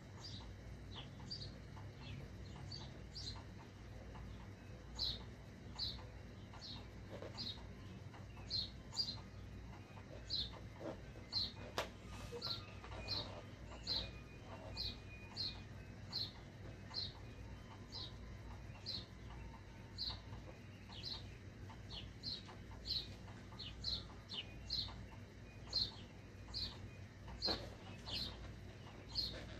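Sharpie fine-point marker squeaking against an inflated balloon as letters are inked in: short high squeaks, roughly one or two a second.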